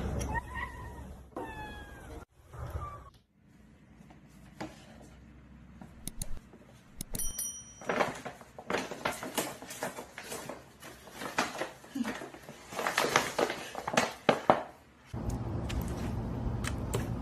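A cat meows a few short falling calls, then a series of irregular sharp clicks and knocks, then a steady low hum.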